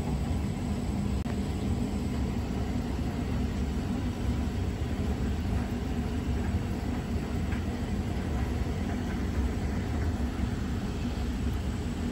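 A steady low rumble with a constant low hum running through it.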